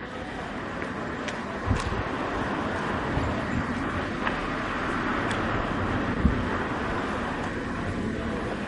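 A vehicle passing slowly along a street: a steady rushing noise that builds to its peak around the middle and eases off near the end. Two short knocks, about two seconds in and about six seconds in, sound over it.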